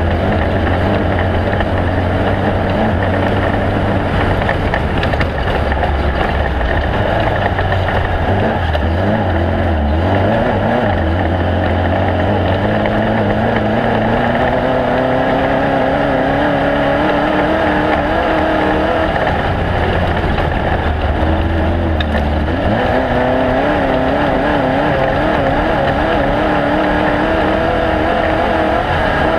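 A loud engine running steadily, its pitch gliding up and down at times.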